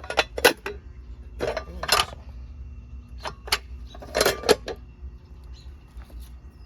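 A series of short metallic clinks and rattles, mostly in pairs about half a second apart, thinning out after about five seconds, over a steady low rumble.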